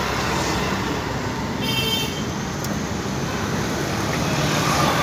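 Steady street traffic noise, with a brief high-pitched tone about two seconds in.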